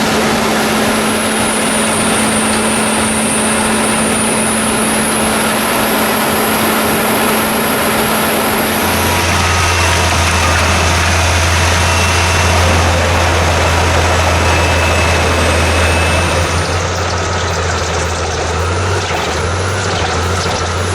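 Albach Diamant truck-mounted drum wood chipper running steadily: a loud diesel engine hum under a constant noise of the rotor at work. About nine seconds in, the hum shifts to a deeper, stronger note.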